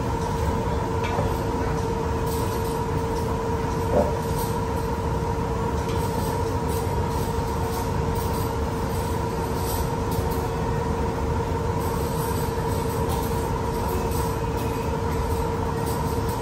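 Steady mechanical hum with a constant tone running under the room, with faint clinks of forks and knives on cast-iron steak plates and one slightly louder knock about four seconds in.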